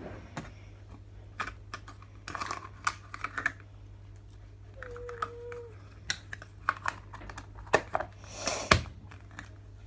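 Fidget toys and their plastic box being handled and rummaged through: scattered light clicks and taps, with a sharper knock near the end and a brief pitched tone about halfway through.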